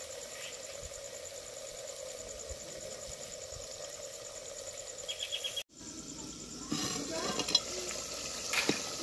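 Steady outdoor background with an insect chirping in a fast, even high pulse. After a cut, louder clicks and knocks of cooking around a clay handi of mutton on a wood fire.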